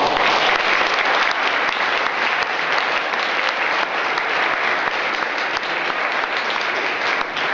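Audience in a hall applauding steadily, the clapping thinning out near the end.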